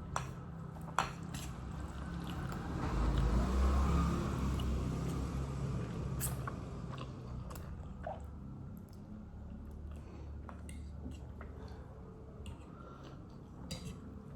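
Close-up mouth sounds of a person eating: chewing and biting, wet squishing with a few sharp clicks, louder for a couple of seconds a few seconds in.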